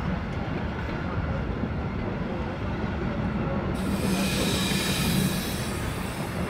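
Wooden Länderbahn-era passenger coaches rolling past on their wheels, a steady low rumble of wheels on rail. About four seconds in a high hissing sound comes in and carries on.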